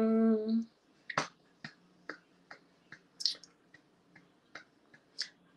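A person's held, closed-mouth "mmm" hum while thinking, ending about half a second in. It is followed by a string of short, sharp clicks, about two or three a second, that stop shortly before the end.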